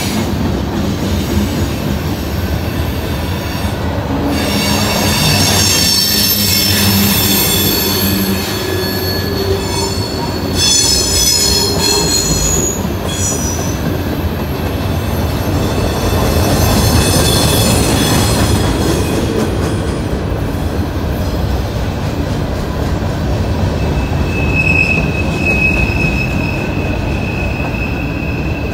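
Long CSX mixed freight train rolling past, its steel wheels on the rails making a steady rumble. High-pitched wheel squeal comes and goes in several bouts.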